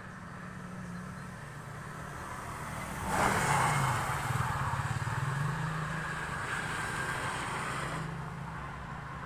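Cars on a highway heard from an overpass: a steady hum of distant traffic, then about three seconds in one car passes close, its tyre and engine noise rising sharply to a loud rush with a falling pitch, then fading away slowly.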